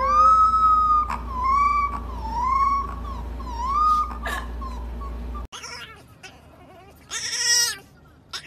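A young puppy howling: one long thin howl, then several short howls that rise and fall in pitch. After a pause, a second puppy gives a brief, louder, harsher cry near the end.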